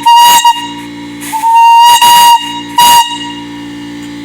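An original 1.5-inch Crane whistle blown by pull cord, sounding one loud, steady note. It gives a short toot at the start, a longer blast of about a second some one and a half seconds in, and another short toot about three seconds in, each with a hiss of rushing gas.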